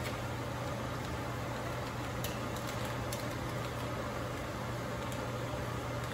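Steady low hum with a hiss over it, from the running kitchen stove and its fan. A few faint clicks and crinkles from a plastic bag of fish fillets being handled a couple of seconds in and again near the end.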